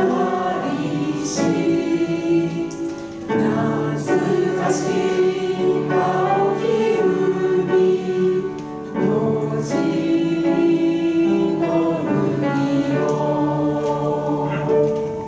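A mixed group of people singing a Japanese camp song together in unison, with piano accompaniment. The last phrase is drawn out in long held notes near the end.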